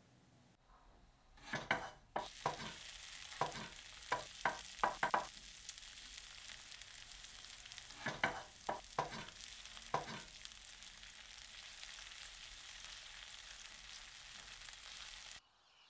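Food sizzling in a pot on a kitchen stove as it is stirred, a steady hiss with sharp knocks of a utensil against the pot: a run of them in the first five seconds and four more between eight and ten seconds in. The sizzle cuts off abruptly near the end.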